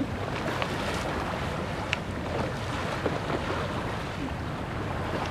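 Steady wind buffeting the microphone, with river water washing against the bank.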